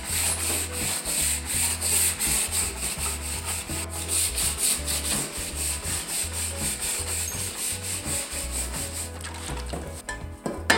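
Wire brush scrubbed back and forth by hand over torch-charred wooden boards, about three to four scraping strokes a second, brushing off the loose char to bring up the grain. The brushing stops about nine seconds in, and a sharp click follows near the end.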